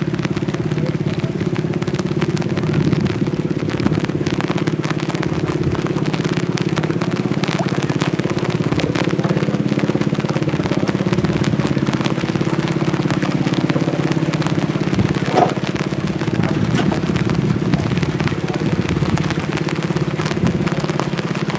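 A motor vehicle's engine running steadily, with an even drone.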